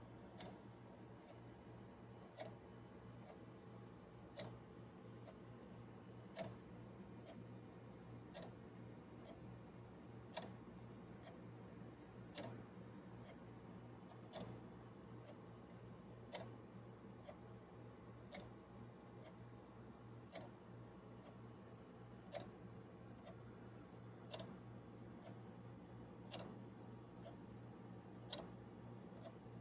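3D printed twin-pivot grasshopper escapement clock ticking faintly. There is about one tick a second, and every other tick is louder, over a low steady hum.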